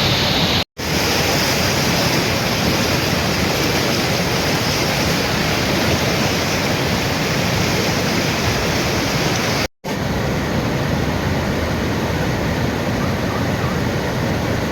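Rushing water of a rain-swollen river or stream, a loud steady rush. It cuts out for an instant twice, about a second in and near ten seconds.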